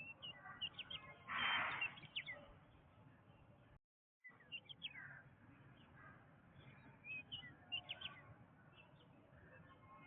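Jungle ambience: many birds chirping in short, quick calls over a steady low background noise. A louder harsh, rasping call comes about a second and a half in. The audio cuts out completely for a moment about four seconds in.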